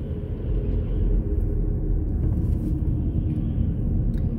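Steady low rumble of a car driving on a town road, heard from inside the cabin: engine and road noise with no sudden events.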